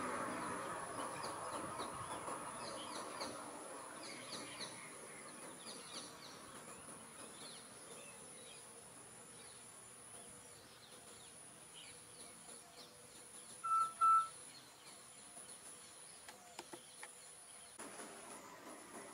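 Forest ambience: insects drone steadily at a high pitch while birds chirp here and there. A broader rumble fades away over the first few seconds, and two short, loud notes sound close together just past the middle.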